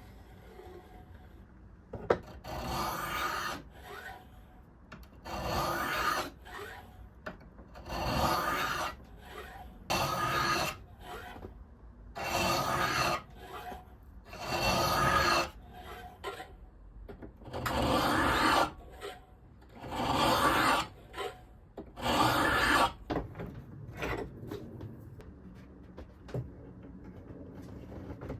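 Hand file being pushed in long, slow strokes across a steel knife blank cut from an old rasp, shaping the blade: about nine scraping strokes, one every two seconds or so, stopping near the end.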